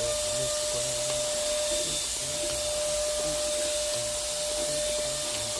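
Vacuum motor running steadily: an even hiss of rushing air with a constant whine.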